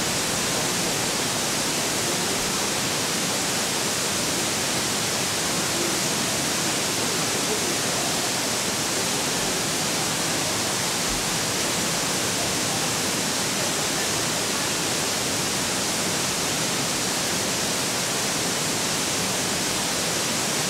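Waterfall rushing: a steady, even hiss with no breaks.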